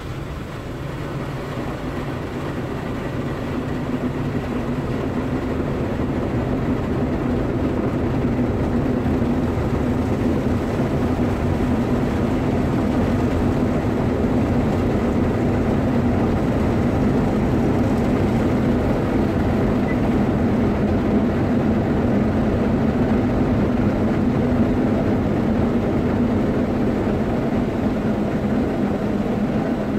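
Automatic car wash's rotating brushes and water spray working against the car body, heard from inside the car's cabin as a steady, low-pitched drone that grows louder over the first few seconds and then holds.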